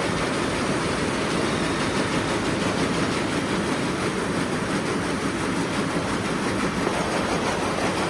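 Steady, unbroken machinery noise.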